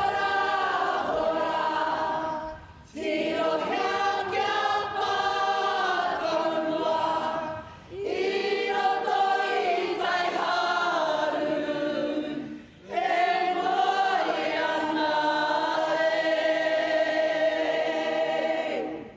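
A kapa haka group singing a Māori waiata together as a choir, in four long phrases broken by short breaths about three, eight and thirteen seconds in.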